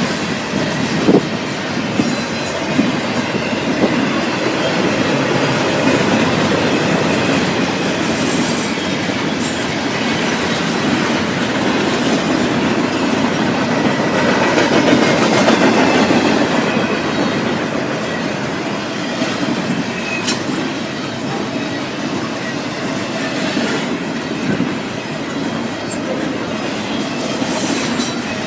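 Norfolk Southern freight train's cars rolling past, with steady wheel-on-rail noise and a few brief high-pitched wheel squeals.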